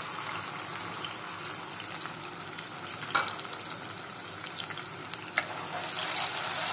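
Ground onion paste sizzling in a pot of hot oil, a steady frying hiss. A couple of short clicks come in the middle, and near the end the frying grows louder as a spoon stirs through it.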